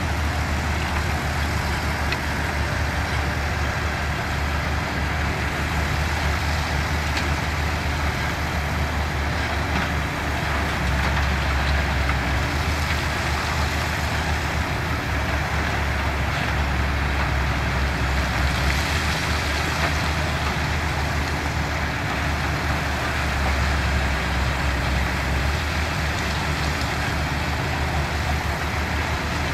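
Diesel engines of heavy construction machinery running steadily with a deep rumble that swells a few times as the machines work.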